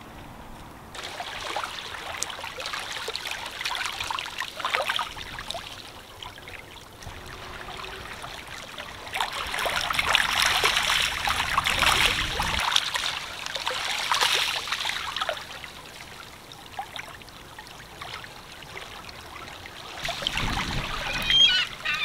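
Shallow sea water washing over pebbles and low rocks at the shoreline, trickling and clicking among the stones. It grows louder in the middle, as a bigger wash comes in.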